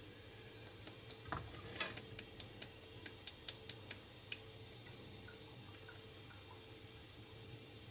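Cooking oil poured in a thin stream from a plastic bottle into a frying pan, with a run of faint dripping ticks and plops, most of them between about one and four and a half seconds in. No sizzle.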